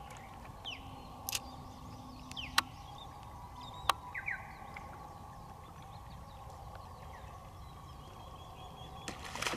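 Quiet open-air background by the water: scattered short bird chirps over a faint steady hum, with three sharp clicks in the first four seconds.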